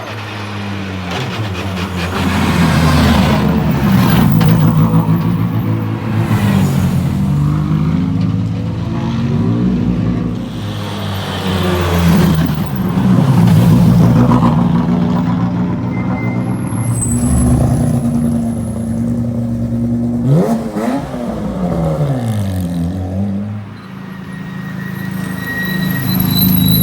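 Rally car engines revving hard and rising and falling through gear changes, with a sharp sweep up and down in engine pitch about twenty seconds in.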